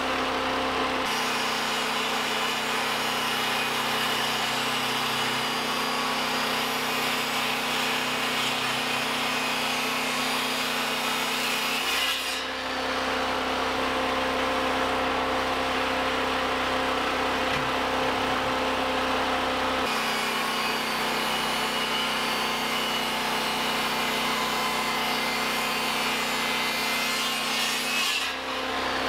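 Engine-driven power saw cutting through wood at a steady pace. The sound changes abruptly a few times along the way.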